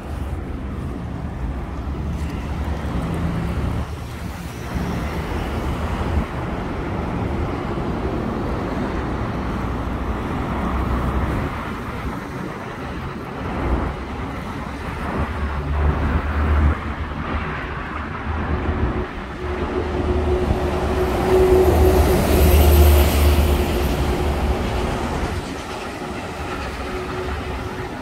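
City street traffic: a continuous rumble of cars driving along a wide avenue. A louder, heavier vehicle passes about three-quarters of the way through, with a steady hum that swells and then fades.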